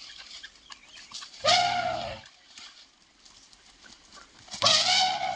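Wild Asian elephant trumpeting twice, each loud blast under a second long, the second coming about three seconds after the first.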